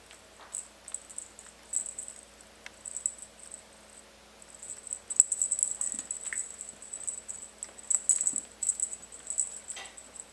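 Kittens' toy bird chirping in rapid, high-pitched bursts while they bat at it, busier in the second half, with light pattering of play.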